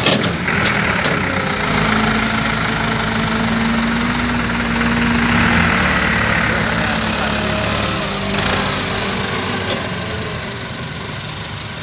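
Massey Ferguson tractor's diesel engine running hard under load as it drags a loaded trolley up out of a sandy pit; the engine drone holds steady, then eases off a little near the end.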